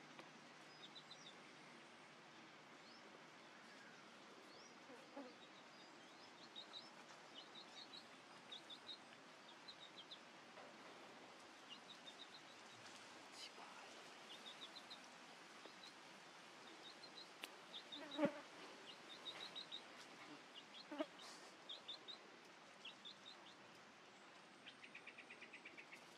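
Quiet outdoor background with faint, high-pitched chirps in quick clusters of three or four, scattered throughout. A single sharp knock stands out about eighteen seconds in, with a smaller one a few seconds later.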